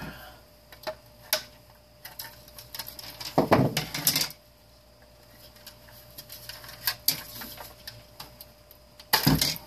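Scattered clicks and clacks of plastic and metal parts being handled as a space heater is taken apart. There are two louder bursts of clattering, one about three and a half seconds in and one near the end.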